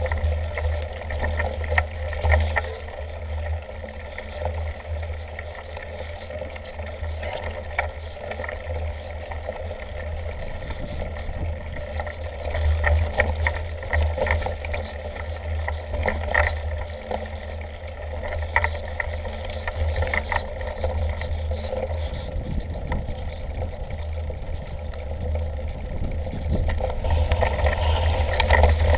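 Low wind rumble on a handlebar-mounted camera's microphone as a mountain bike rolls over a rough grassy track, with frequent small rattles and clicks from the bike over bumps, a little louder near the end.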